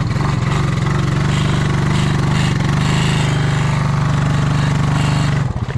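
Honda Rancher 350's single-cylinder four-stroke engine held at high revs under load as the four-wheeler tries to dig itself out of a mud hole, then the throttle drops off shortly before the end. The quad stays stuck.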